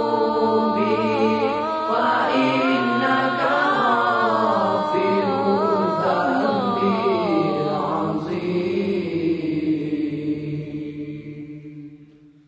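Islamic devotional zikir chanting: a voice sings long melismatic lines of the Arabic repentance poem, the pitch bending and sliding from note to note. It fades out to silence near the end.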